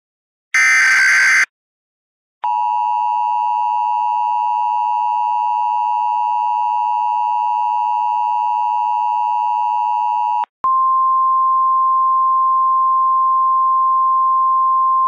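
Emergency Alert System tones: the last short burst of the SAME digital header ends about a second in. About a second later the steady two-tone EAS attention signal starts and holds for about eight seconds. It then cuts straight to a single steady tone, the NOAA Weather Radio 1050 Hz alert tone, marking a warning-level alert.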